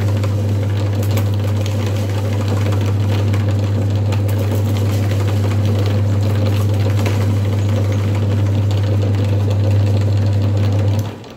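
Electric meat grinder running with a steady, loud motor hum as it grinds sugary snack pieces into crumbs. The motor cuts off near the end and the sound dies away.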